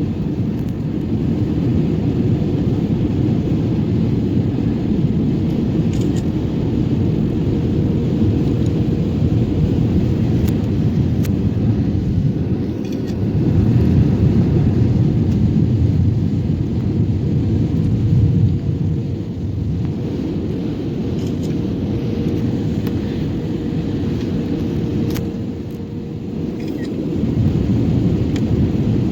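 Steady low rumble of an airliner's engines and airflow heard inside the passenger cabin, with a faint steady hum over it. It swells louder for a few seconds around the middle.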